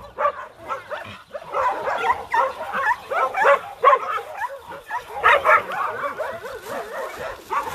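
A group of dogs barking and yelping together: many short, overlapping barks throughout.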